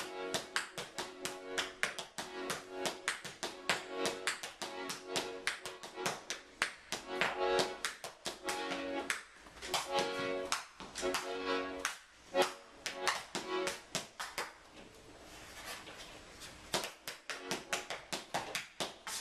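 Tap shoes striking a wooden stage in quick, dense rhythm, mixed with short repeated chords on an accordion. Past the middle the tapping thins out briefly before quick taps resume near the end.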